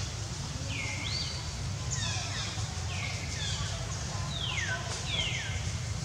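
A series of short, high-pitched animal calls, each a quick slide in pitch, mostly falling, repeating every half second to a second. A steady low rumble runs underneath.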